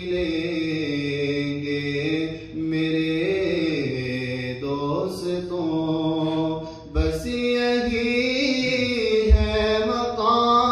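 Male voice singing an Urdu naat unaccompanied through a microphone, in long, slowly gliding held notes. Two low thumps in the second half.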